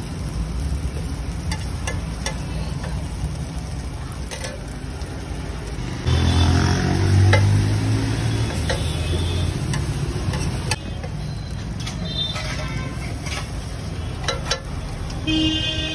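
Metal spatula scraping and tapping on a large flat griddle (tawa) as veg kebab patties are flipped and pressed, with frying sizzle, over steady street traffic. A vehicle engine passes close about six seconds in, louder than everything else for a few seconds.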